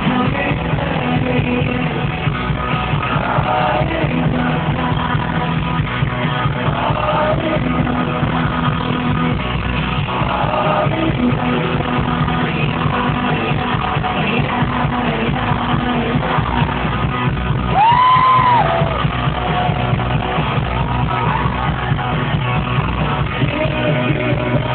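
Live rock band playing a loud song with electric guitars, drums and singing. About 18 seconds in, a loud held note rises, holds and falls.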